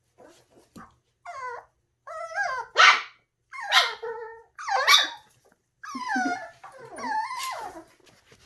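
Seven-week-old puppy yipping and whining in a run of about eight short, high-pitched calls, a few of them sharp barks.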